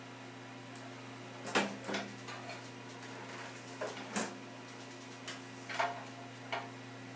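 A desktop computer's power supply being wrenched against the clips that hold it in the metal case: several short metal knocks and clunks, the loudest about a second and a half in, over a steady low hum.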